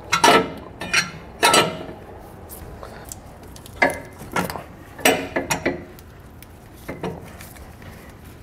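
Steel air-spring lower bracket clanking against the axle bracket as it is worked into position by hand: a string of separate metal knocks with short ringing, several close together about five seconds in. The bracket is still catching on the axle bracket, which needs more trimmed off.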